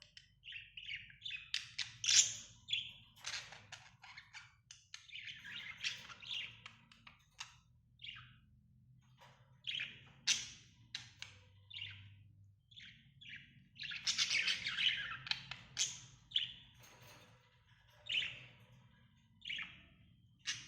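Small pet parrots chirping and chattering in quick, irregular bursts, with denser stretches of overlapping calls twice.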